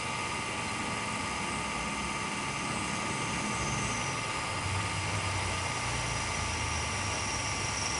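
DJI Phantom 3 Advanced quadcopter's four brushless motors and propellers spinning at idle while it sits on the ground, a steady whirring whine. A deeper whir strengthens about halfway through.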